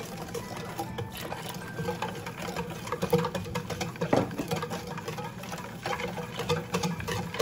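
Wire balloon whisk beating a thin egg-yolk and milk batter by hand in a metal bowl. The wires click and scrape against the bowl in a quick, steady rhythm, with wet sloshing of the batter.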